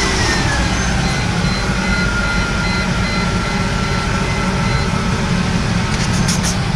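Car engine idling steadily just after being started, with a faint, evenly repeated high beep over it.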